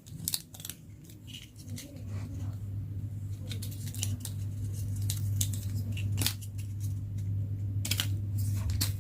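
Handling of plastic toys and packaging: scattered sharp clicks and taps, over a steady low hum that starts about two seconds in.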